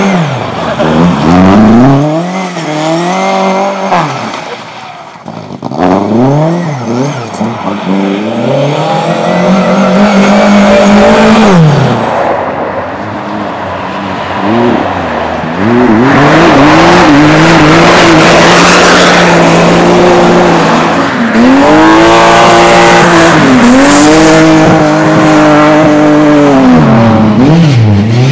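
Race car engines revving hard on a circuit, the pitch climbing, holding and dropping off again several times as they accelerate and brake, with tyre squeal.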